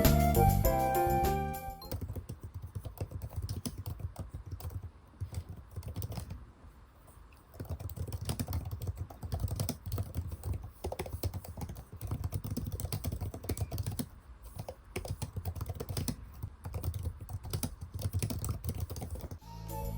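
Typing on an iPad keyboard case: a quick, uneven patter of key clicks that pauses briefly about a third of the way in. Background music plays at the start, cuts out about two seconds in, and comes back just before the end.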